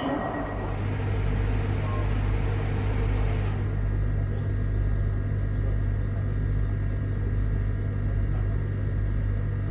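Steady low hum inside a passenger car of a Pesa Dart ED161 electric multiple unit, setting in under a second in after a brief moment of platform noise.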